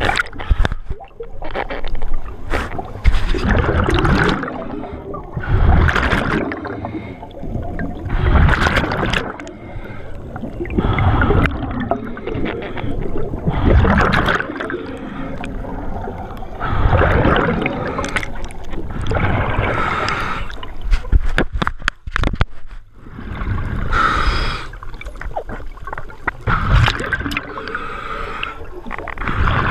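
Scuba diver breathing through a regulator underwater: bubbling, gurgling exhalations in bursts about every two to three seconds, with quieter inhalations between them.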